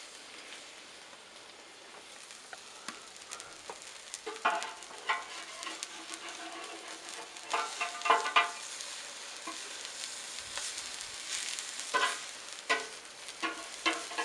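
Bacon sizzling steadily on a hot 5 mm stainless-steel grill grate over charcoal. Metal tongs and a spatula clink and scrape against the grate in short clusters as the strips are moved, about four seconds in, around eight seconds and near the end.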